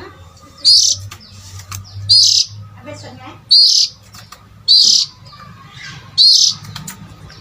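Oriental magpie-robin (kacer) call played as a lure, one short high call repeated five times, about every second and a half, over a faint low hum.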